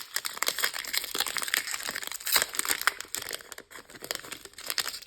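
Crinkly foil wrapper of a Pokémon card booster pack being handled and opened, a dense crackling for the first three and a half seconds, then a few sparser crackles.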